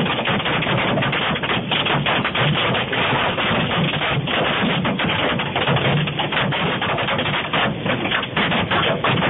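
Hail pelting down, a loud dense clatter of countless small impacts with no let-up, heard through a phone's narrow-band recording.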